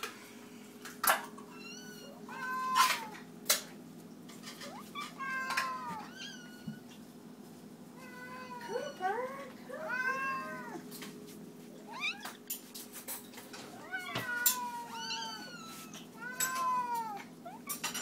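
Several house cats meowing over and over, their rising-and-falling calls often overlapping, as hungry cats begging to be fed. Sharp clicks and knocks come in among the meows, over a steady low hum.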